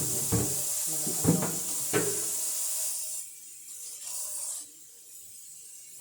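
Tap water running into a sink, a steady hiss that stops about three seconds in.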